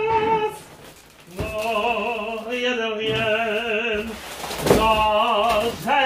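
A man singing drawn-out, wordless notes with a wide vibrato in an operatic style, in three phrases with short breaks about a second in and about four seconds in.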